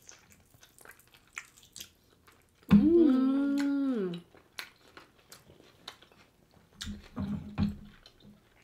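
Wet chewing and mouth clicks from eating gelatinous, tendon-y cow leg, broken about three seconds in by a loud closed-mouth "mmm" hum of enjoyment lasting about a second and a half, its pitch rising then falling. Short low hums follow near the end.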